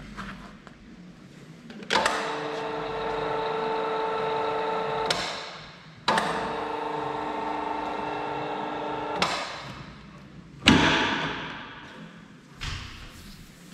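LIMA PE-1 pipe expander running twice, each time for about three seconds: a steady machine whine that starts abruptly and winds down, as it widens the end of a downpipe. After that comes one loud knock, and a lighter one near the end as the pipe is handled on the expander head.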